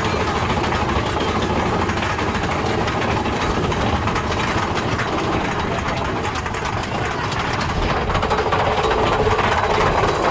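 Big Thunder Mountain Railroad mine-train roller coaster running along its track: a steady noise of the moving train, with a fast rattle of the cars.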